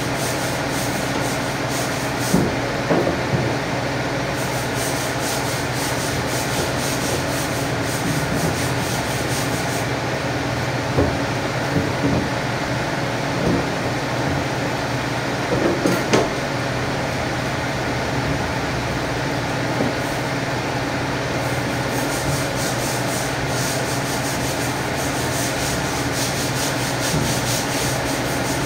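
Steady machine hum and hiss throughout, with a few soft knocks and scrapes from a butcher's knife cutting along the ribs of a pig carcass.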